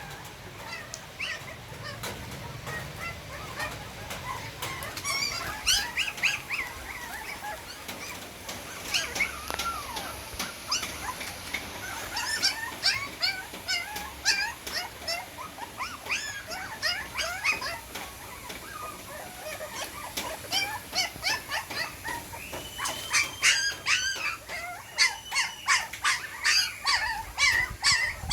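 Many newborn puppies whimpering and squealing while trying to nurse from their mother, short high rising-and-falling cries overlapping one another, coming thicker and faster near the end.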